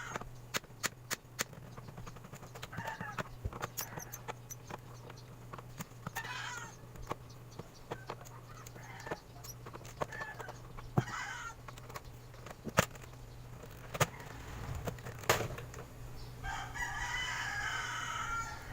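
Sharp clicks and snaps of the all-in-one PC's plastic casing and screws being worked open, over a steady low hum. A bird calls in short bursts a few times and once more for about two seconds near the end.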